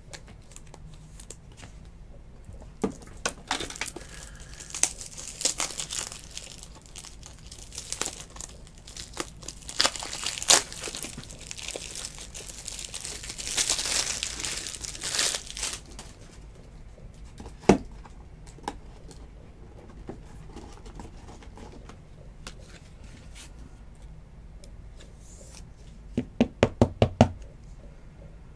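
Plastic and paper card packaging crinkling and tearing as trading cards are unwrapped and handled, with scattered clicks, busiest in the middle. Near the end there is a quick burst of about seven keystrokes on a computer keyboard.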